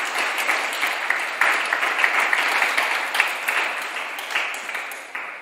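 Small seated audience applauding, a dense patter of hand claps that thins out and fades away near the end.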